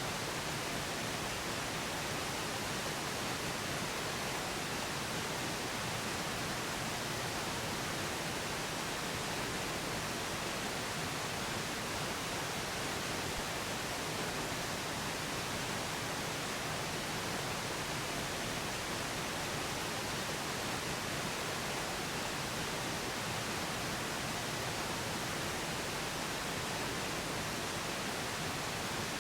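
Steady pink noise, an even hiss that does not change.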